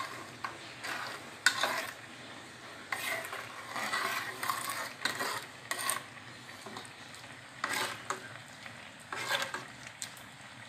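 A ladle stirring a thick sauce in a cooking pot, scraping the pot in short irregular strokes over a low background of cooking.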